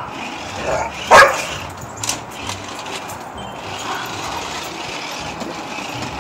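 A dog barking, with one loud sharp bark about a second in and quieter sounds after, over a steady hissing noise.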